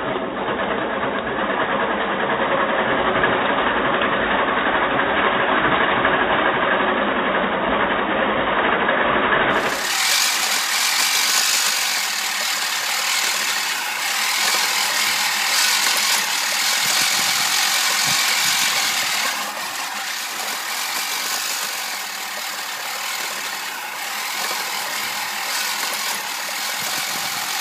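Manual push reel mower running through grass: the spinning cylinder blade reel whirring and clattering as it cuts, with the wheels rattling. The sound is dull and low for roughly the first ten seconds, then turns abruptly brighter and hissier.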